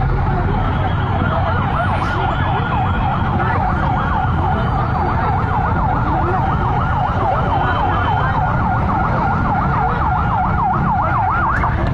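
Emergency vehicle siren in a fast yelp, its pitch rising and falling about five times a second, over a steady low background rumble; it cuts off near the end.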